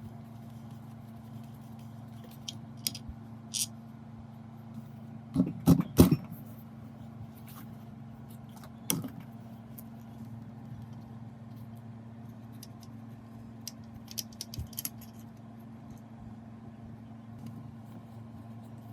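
Scattered metallic clinks and knocks from gearbox parts being handled, with the loudest cluster of knocks about six seconds in, over a steady low hum.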